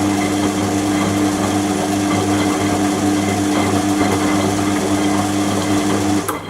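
Washing machine running with a steady mechanical hum, which cuts off abruptly near the end.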